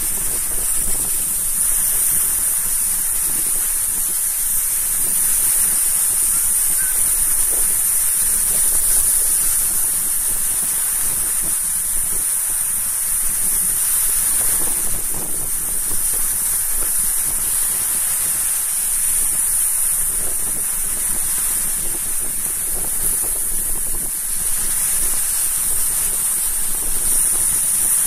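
Sea surf: small waves breaking and washing up the shore in a steady, unbroken hiss, with wind on the microphone.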